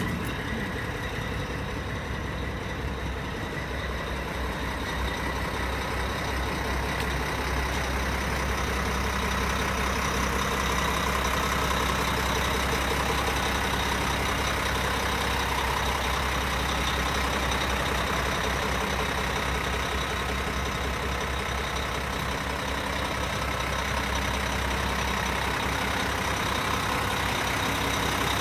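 Diesel engine of a 2002 Mack Quantum truck idling steadily.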